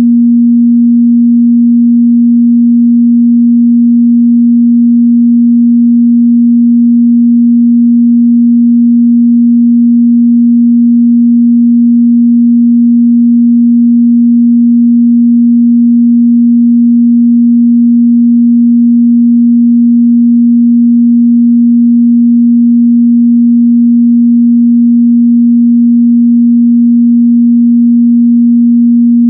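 A steady, loud 237 Hz sine-wave test tone, a single pure pitch held unchanged throughout, of the kind used to check the mid-bass response of speakers and headphones.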